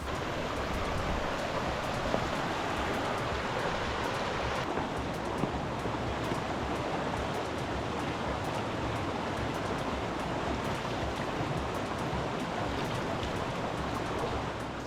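Stream running high with spring water, a steady rush of flowing water.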